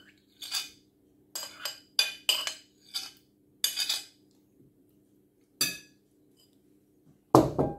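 Metal spoon scraping and clinking against a ceramic plate in a string of short strokes, pushing canned fruit cocktail off the plate into a glass bowl. Near the end comes one louder knock of crockery.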